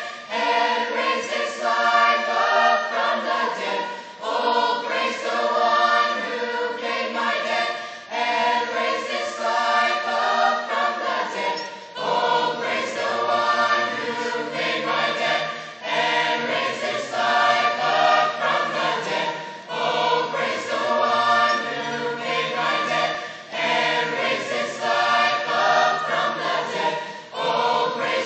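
A mixed-voice choir singing in phrases of about four seconds each, with short breaths between them; lower voices join about twelve seconds in.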